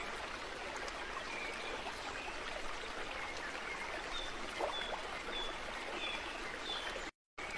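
A stream running steadily with birds chirping over it; in the second half one bird repeats a short high chirp five times at an even pace. The sound cuts out completely for a moment near the end.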